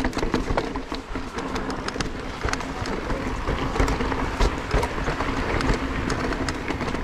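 Giant Trance E+2 electric mountain bike being ridden over a rough trail: a steady rolling rumble of tyres on the ground with frequent clicks and rattles from the bike, and wind buffeting the helmet- or bike-mounted camera's microphone.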